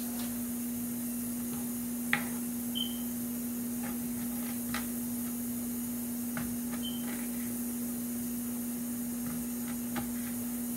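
A few light knocks and clicks of hands handling food and a knife on a bamboo cutting board, the sharpest about two seconds in, over a steady low hum. Two brief high squeaks come through as well.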